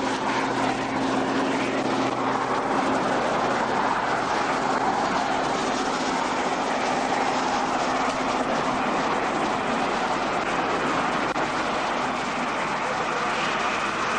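Steady rush of highway traffic and wind noise, with a low hum that fades away over the first half.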